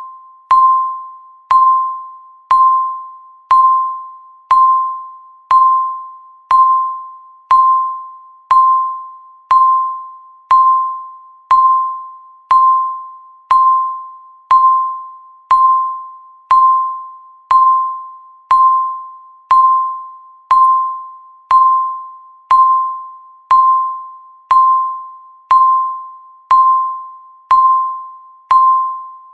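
Countdown timer beep: a single bell-like electronic ping, once every second, each fading out before the next.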